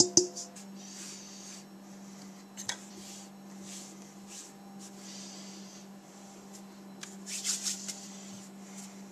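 Fingers pressing and rubbing moist ground tobacco down into a glass mason jar: soft scraping and rubbing, with a couple of sharp taps at the start, a single knock a little under three seconds in, and a flurry of scrapes near the end, over a steady low hum.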